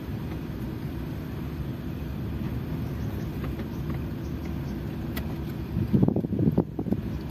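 Campervan driving slowly, heard from inside the cab as a steady low rumble of engine and road noise, with a few louder low buffets near the end.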